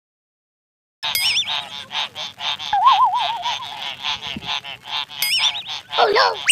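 Comic sound-effect track of rapid goose-like honking squawks, about five a second, starting after a second of dead silence, with warbling whistle tones laid over it near the start, in the middle and again about four seconds in.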